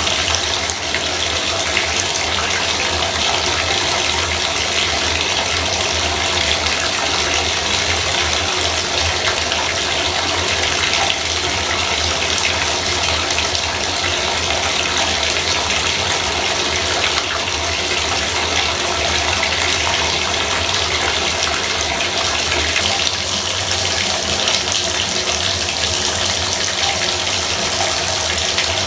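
Bathtub faucet running water, a steady loud gush into the tub.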